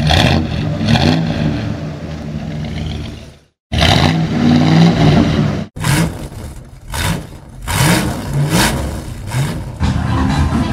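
Car engines revving in a string of short spliced clips, the pitch rising and falling with each blip of the throttle. The sound cuts off abruptly a couple of times between clips.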